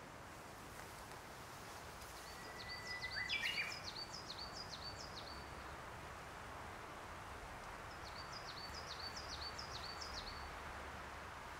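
Songbird singing two phrases of quick, high, repeated notes, the first about two seconds in and louder, the second about eight seconds in, over a steady hiss of outdoor background noise.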